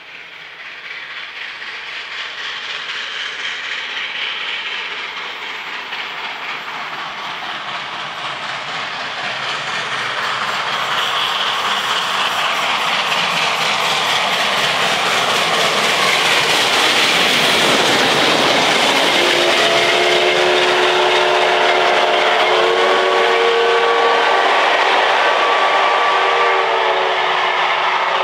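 SNCF 141R Mikado steam locomotive and its train approaching, growing steadily louder and passing close, with the clatter of the carriages on the rails. About two-thirds in, a long steam whistle blast of several notes sounding together holds for about eight seconds.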